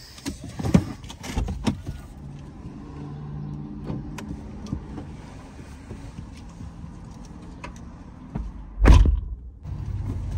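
Clicks and rustling as a driver climbs out of a car, over a steady low hum, then a car door shutting with one loud thump about nine seconds in.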